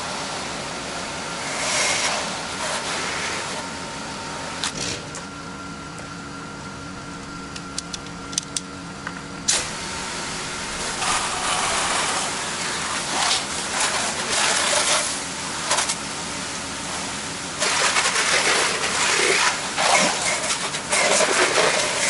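Pressure washer engine running steadily, with loud bursts of hissing spray from the wand striking vinyl siding, about halfway through and again near the end.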